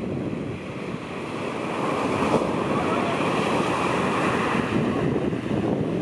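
Shorebreak waves breaking and surf washing up the beach, with wind buffeting the microphone; the surf grows louder about a second in.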